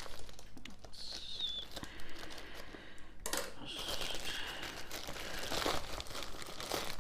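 Packaging of a latch hook kit being opened by hand: crinkling and rustling with some tearing, louder and busier from about halfway through.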